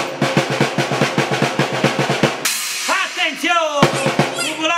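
A drum struck with sticks in a rapid, even beat of about seven strokes a second, cut off by a cymbal crash about halfway through. After it, a man's voice calls out in long, swooping tones.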